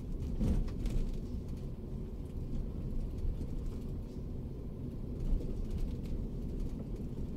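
Daihatsu Terios driving, its engine and tyres making a steady low rumble heard inside the cabin.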